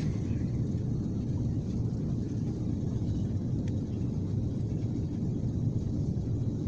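Steady low cabin rumble of an Airbus A330-200 descending on approach for landing, heard from a window seat inside the cabin.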